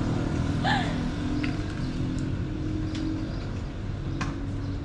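A motor vehicle's engine running with a steady low hum, slowly fading, with a brief voice and a few light clicks.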